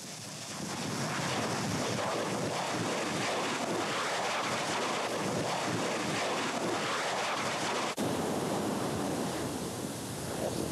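Steam explosions where Kīlauea lava meets seawater: a dense, steady rush of noise full of rapid crackles as spatter and glass fragments are blown into the air. About eight seconds in it cuts to the smoother wash of surf breaking over lava entering the sea.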